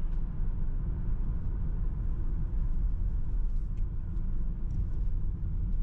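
A car driving along the road: a steady low rumble of engine and tyre noise.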